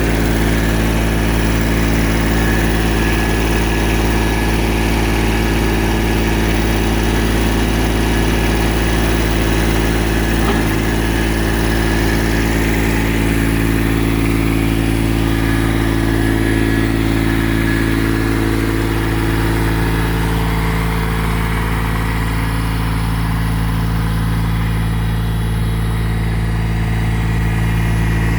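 Kubota BX2200 compact tractor's small three-cylinder diesel engine running steadily at a constant speed.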